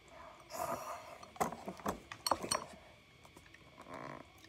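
A person slurping instant cup noodles off a fork, then a few sharp clicks and taps.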